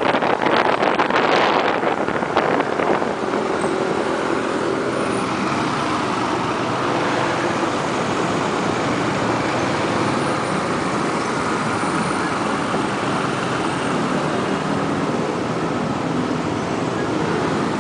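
Motorbike engine running steadily under a wash of city traffic noise, heard from the pillion seat while riding. Wind buffets the microphone unevenly for the first couple of seconds before the sound settles.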